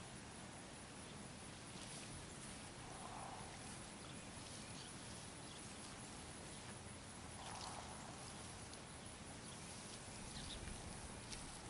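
Faint outdoor ambience: a steady low hiss with a few light clicks and soft knocks.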